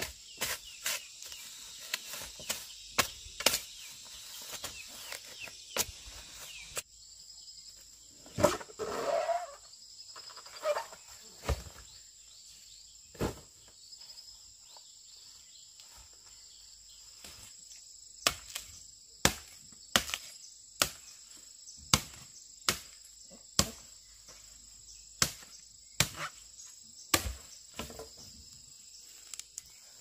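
Insects buzzing steadily in two high tones, over a string of sharp knocks. The knocks are irregular at first, then come about once a second in the second half.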